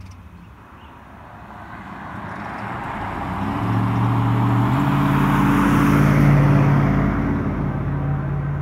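A pickup truck driving past on the street: engine hum and tyre noise build from a couple of seconds in, are loudest around six seconds in, then ease off a little.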